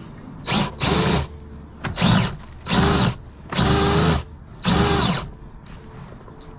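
Cordless drill spinning a RIDGID FlexShaft drain-cleaning cable in about six short trigger bursts, each winding up and back down in pitch. The cable is packed with debris and jammed in its sheath.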